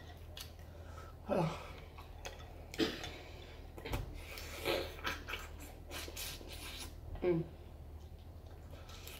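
A person eating seafood gumbo up close: chewing and wet mouth sounds with several short slurps a second or two apart, over a low steady hum.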